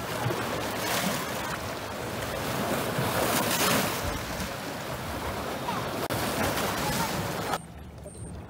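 Choppy lake waves washing and splashing against shoreline rocks, with gusting wind rushing over the microphone; the sound surges a couple of times, then cuts abruptly to a much quieter background near the end.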